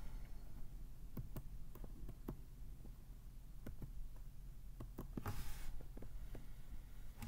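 Faint room tone: a steady low hum with scattered soft clicks and small knocks, and a brief rush of noise a little past the middle.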